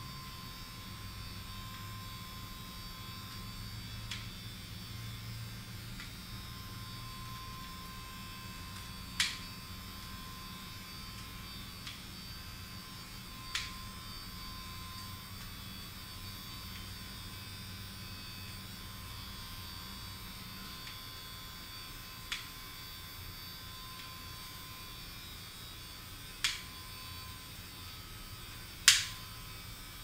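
Steady electrical hum with a thin high whine above it, broken by about five sharp clicks, the loudest near the end.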